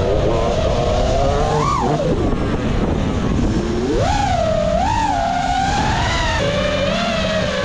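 Brushless motors of a 5-inch FPV freestyle quadcopter (Ethix Stout 2306 1750 kV) whining, the pitch swooping up and down with the throttle as the drone flies, over a rush of wind noise. A sharp rise comes just before the two-second mark, a dip about a second later, another climb soon after, and the whine steadies near the end.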